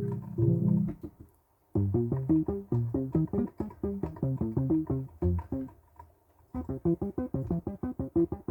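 Behringer DeepMind 12 analog polysynth playing a preset: a held chord ends about a second in, then a quick repeating pattern of short, plucky notes. After a brief pause near the end, a second fast run of short notes begins.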